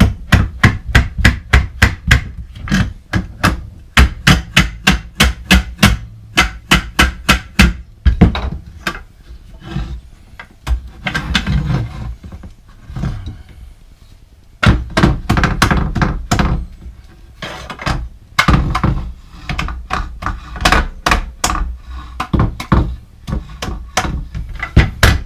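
Hammer blows driving a bike roof rack part into place: quick repeated strikes, about four a second, in runs, with a slower, scattered stretch of knocks in the middle.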